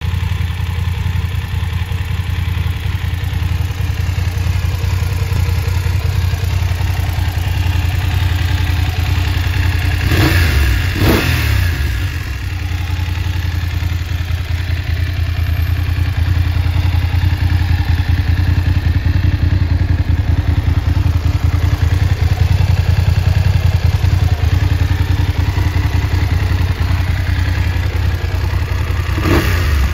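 BMW F 850 GS's 853 cc parallel-twin engine idling steadily, blipped twice in quick succession about ten seconds in and revved again near the end.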